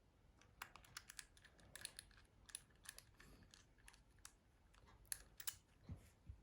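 Faint, irregular small clicks and taps of tiny screws and phone parts being handled and placed during a mobile phone's reassembly, a few sharper clicks about five seconds in.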